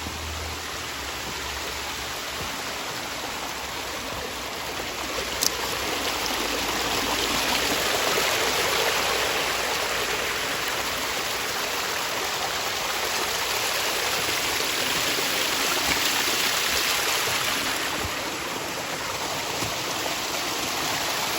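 Water running down a constructed backyard pond stream and spilling over its waterfall: a steady rushing and splashing that grows louder after about six seconds and eases a little near the end.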